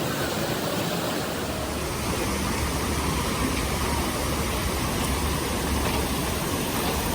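Steady rushing of a flowing river, with a low rumble joining in a couple of seconds in.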